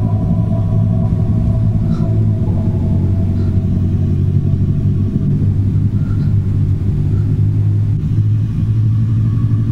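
A steady, loud low rumble with a few faint ticks over it.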